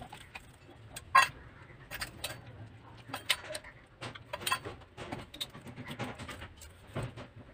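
A thin metal knife scraping thick epoxy out of a plastic tub and off its foil seal, then scraping it into a steel bowl: irregular scrapes, taps and clicks, with a sharp knock about a second in.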